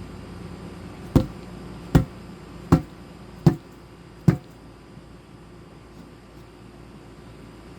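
Five sharp, evenly spaced knocks, about one every three-quarters of a second, then they stop: blows struck while working a low-profile tire over its rim on a manual tire changer.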